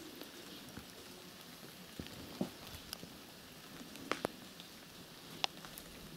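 Steady outdoor hiss with a handful of scattered, irregular light clicks and taps.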